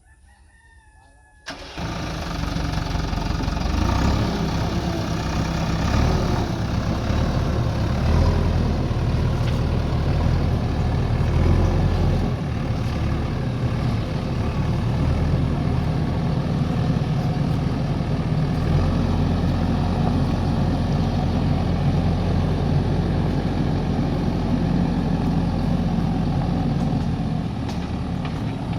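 A JCB backhoe loader's diesel engine running. It comes in abruptly about a second and a half in, then stays loud and steady with a low drone.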